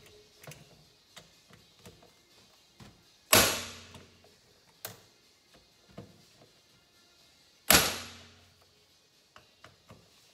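Two hammer blows on a hand impact driver, about four seconds apart, each a sharp metallic strike that rings briefly, with light clicks and taps of the driver and screws between. The blows are breaking loose the stubborn Phillips screws that hold the crankcase halves of a 1975 Kawasaki G7 two-stroke engine together.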